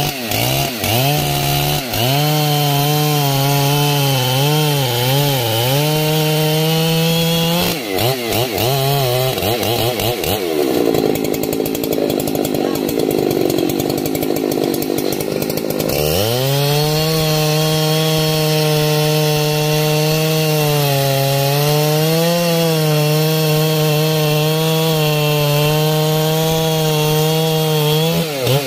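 Husqvarna 3120XP chainsaw's large two-stroke engine running at full throttle, its chain cutting into the base of a thick rain tree trunk, the engine note wavering as the bar loads up in the cut. About a third of the way in, the pitch breaks up for several seconds. It climbs back about halfway through and holds steady under load.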